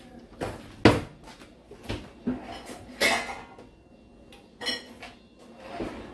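Metal cutlery and dishes clinking and knocking against each other in a series of separate knocks, the loudest about a second in, with one near the end that rings briefly.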